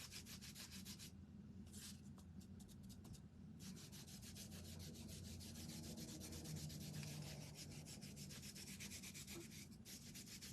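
A baby wipe rubbed rapidly back and forth over a quarter-inch wooden star cutout, working burnt umber in to stain the wood. It makes faint, even scrubbing strokes, with a few short pauses.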